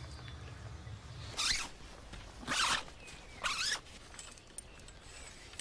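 A zipper pulled in three quick rasping strokes, about a second apart.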